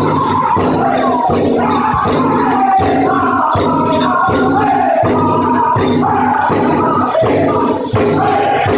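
A powwow drum group singing a chicken dance song in high voices over steady beats on the big drum, with the dancers' bells jingling.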